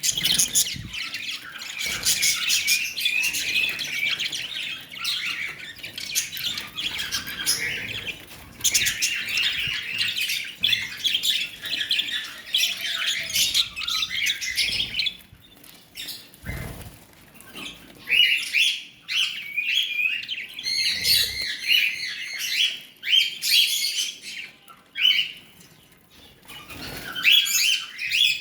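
Pet lovebirds chattering: long runs of rapid, high-pitched chirps and squawks, broken by a few short pauses.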